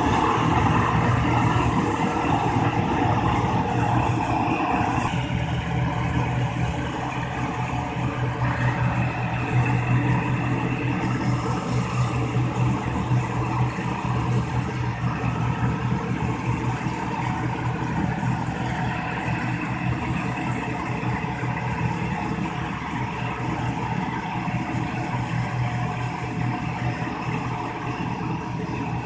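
Ford 5880 tractor's diesel engine running steadily under load as it pulls and powers a straw chopper through cut wheat straw, with the chopper working alongside. A steady low engine drone.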